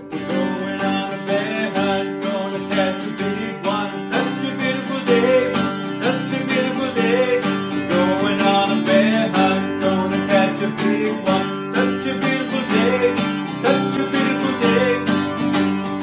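Acoustic guitar strummed in a steady, even rhythm of chords.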